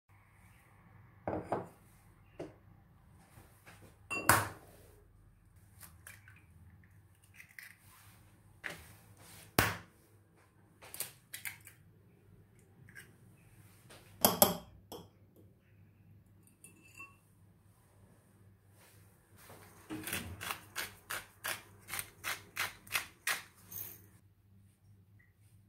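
Scattered knocks and clicks of household items being handled, with a few louder knocks, then a quick even run of about a dozen taps near the end.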